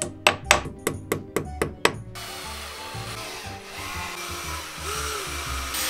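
Hammer knocking wall plugs into drilled holes in a wall: about seven quick strikes, roughly four a second, over the first two seconds, then a steady hiss. Background music plays throughout.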